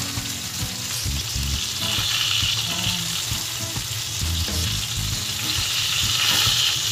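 Marinated chicken barbecue pieces sizzling on a round grill plate, the pieces cooking through. A steady hiss that swells a little about two seconds in and again near the end.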